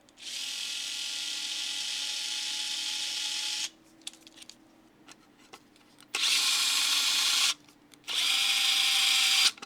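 Small cordless electric screwdriver motor running in three bursts, with a steady whine. The first run lasts about three and a half seconds. The two shorter, louder runs of about a second and a half each come after a pause.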